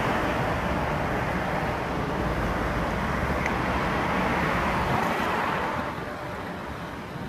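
Wind rumbling on a phone microphone over the steady noise of street traffic, easing off about six seconds in.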